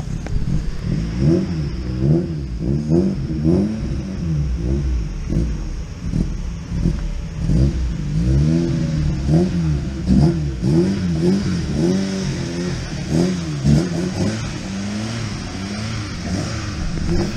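Ford Focus ST170's 2.0-litre four-cylinder on individual throttle bodies, revved again and again in quick throttle blips, each rising and falling back, through its Powerflow exhaust.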